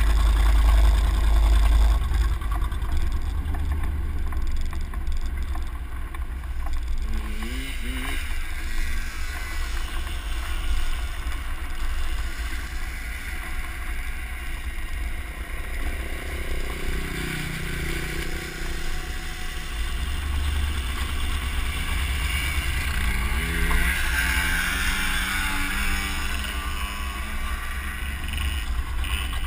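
Truck driving along a dirt track, heard from a camera mounted outside on its door, with heavy wind rumble on the microphone. The engine rises in pitch twice as it speeds up, about a quarter of the way in and again about three quarters in.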